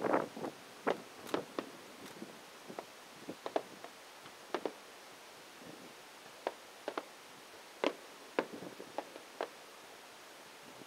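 Aerial fireworks shells bursting: a cluster of bangs at the start, then scattered single sharp pops about once a second.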